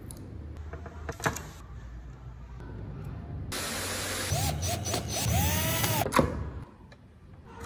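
Cordless drill running for about two and a half seconds, its whine rising and falling in speed, after a single sharp click about a second in.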